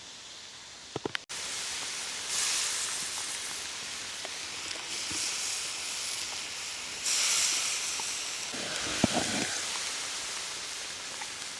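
Food sizzling in a pot over a firewood fire: a steady hiss that grows louder about two seconds in and again about seven seconds in, with a few light clicks and knocks.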